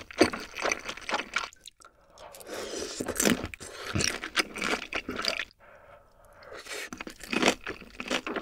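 Close-miked eating of black bean sauce (jjajang) instant noodles: the noodles are sucked in from a spoon, then chewed with wet, irregular mouth sounds. A short lull comes about two-thirds through, before the chewing resumes.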